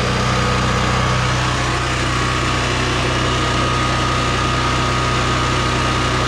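Westinghouse WGen9500DF portable generator's single-cylinder engine running steadily, heard directly through the shed's open lid, with a steady high whine over the engine note.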